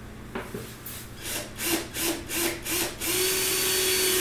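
Cordless drill boring a hole in a plastic bottle: it is pulsed in several short bursts to start the hole without the bit skating off, then runs steadily for just over a second with a constant motor whine.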